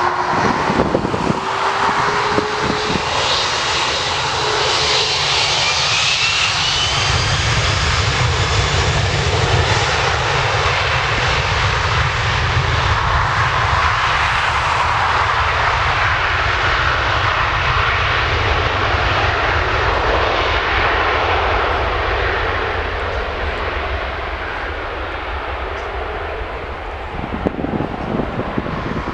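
Airliner engines running loud and steady close by, a rising whine in the first few seconds over a broad rush and low rumble. The noise eases off a little after about twenty seconds.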